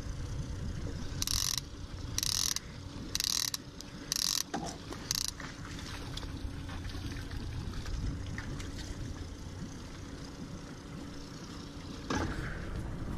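Fishing reel ratcheting in five short bursts about a second apart, as its line is let out, over the steady low hum of a Honda four-stroke outboard motor. A knock near the end.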